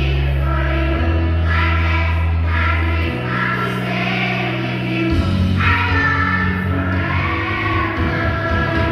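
A song with sung vocals, over a bass line that steps to a new note every second or two.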